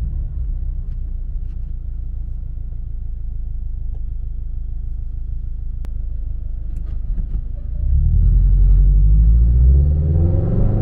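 Subaru BRZ's flat-four engine through a MAperformance 3-inch cat-back exhaust, with headers and a tune, heard inside the cabin: a steady low rumble while cruising. About eight seconds in it gets louder and rises in pitch as the car accelerates.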